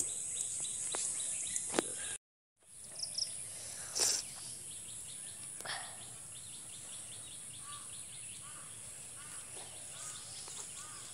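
Rural outdoor ambience: a steady high-pitched drone with small birds chirping, most often in the second half. A few light clicks come early, the sound drops out briefly about two seconds in, and there is one knock about four seconds in.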